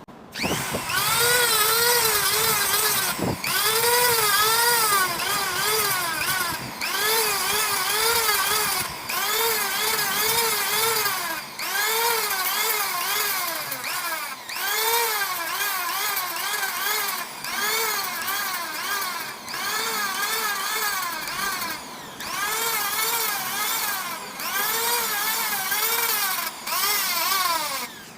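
Power sander working a CNC-machined surface. Its whine rises and falls in pitch with each pass, about once a second, over a gritty hiss, with short breaks every few seconds as the sander is lifted or repositioned.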